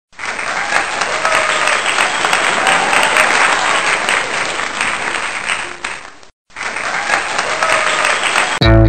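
Crowd applause, a dense clatter of clapping that breaks off for a moment about six seconds in and then resumes. Near the end a loud bass and guitar note starts music.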